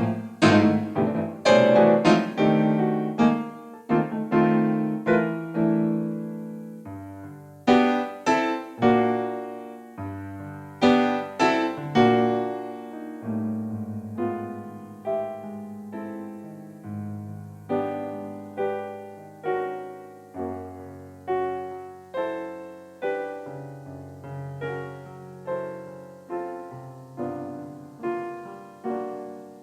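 Solo keyboard in a piano voice, improvising with struck chords that ring and fade. Loud, close-spaced chords in the first dozen seconds give way to softer chords about once a second.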